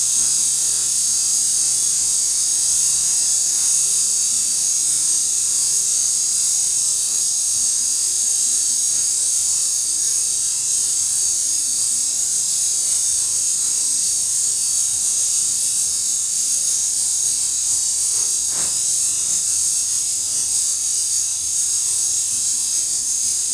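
Eastern diamondback rattlesnake rattling its tail, a continuous high, hiss-like buzz that is the snake's warning display. One short knock comes about three-quarters of the way through.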